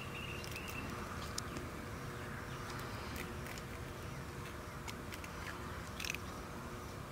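Scissors snipping along a water moccasin's belly skin to open it for skinning, a scattered series of short clicks, the clearest about six seconds in, over a steady outdoor background hiss.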